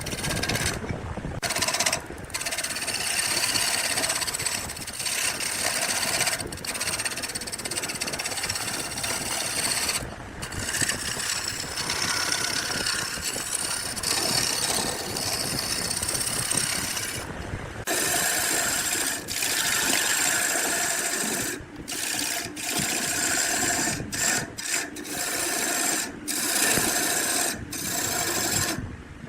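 Wood being worked with an abrasive or rasping tool: a rough, scraping hiss in stretches, broken by many short pauses. After about halfway a faint steady whine runs under it.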